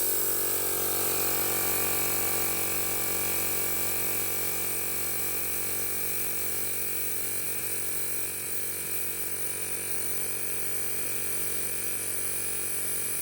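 Airmaster Tiger 8/260 air compressor running steadily, its motor and pump pumping up the tank against closed valves. The pressure builds only slowly, to about 3 bar, and the repaired high-pressure elbow joint may still be leaking a little.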